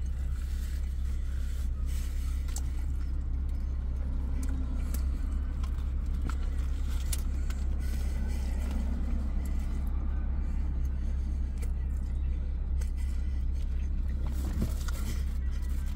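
Steady low hum of a car idling, heard from inside the cabin, with a few faint clicks and rustles.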